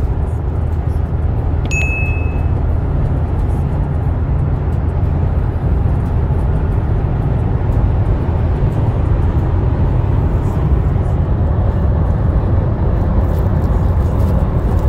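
Steady road and engine noise inside the cabin of an Opel Astra K under way, with a single short ding about two seconds in.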